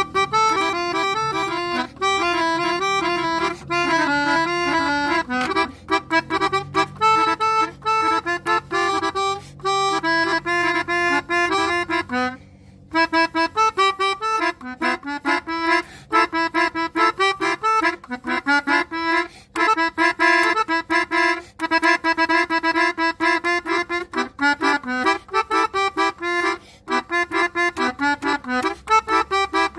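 Basuri telolet horn, a multi-trumpet electric air horn for buses, tooting a fast, reedy melody of quick note runs, with a short break about twelve seconds in.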